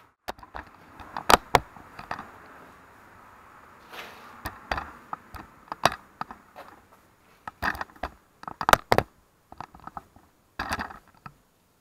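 Scattered sharp knocks, taps and clicks of handling, with the loudest clusters about a second in and again around eight to nine seconds in. This is the action camera being moved and set in place against the wooden wall frame, not the drill running.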